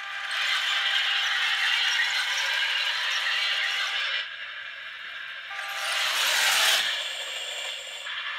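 Small electric drive motors and gearing of a 1/35-scale RC E-100 tank model driving on a laminate floor, its metal tracks clattering and rattling. Loud for the first four seconds, dipping, then rising again shortly before the end.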